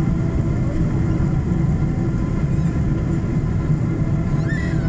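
Airliner cabin noise as the jet rolls along the runway after landing: a steady low rumble from the engines and wheels, with faint steady whining tones above it. A brief high squeak comes near the end.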